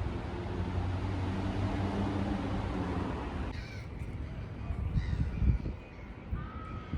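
A few short bird calls, heard singly in the second half over low background noise, after a steadier noisy stretch.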